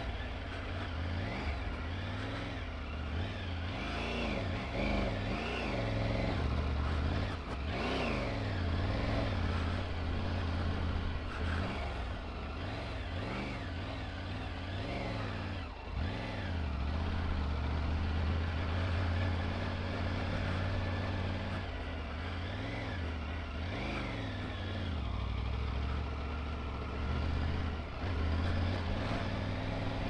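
Triumph Tiger 900 Rally Pro's three-cylinder engine running under way while climbing, its revs rising and falling over and over as the throttle is opened and closed.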